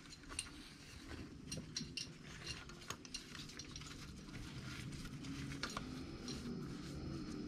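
Scattered light metallic clicks and clinks of valve-spring parts and hand tools being handled on an LS V8 cylinder head while new valve springs are fitted.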